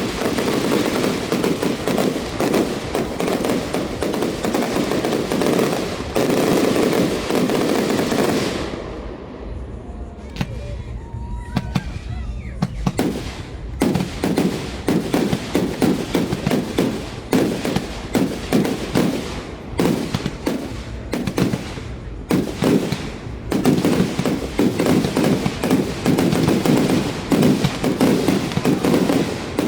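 Fireworks: a dense barrage of rapid bangs and crackle that eases off about nine seconds in, leaving a few faint whistles. It then builds again into many quick, separate bangs that grow thicker near the end.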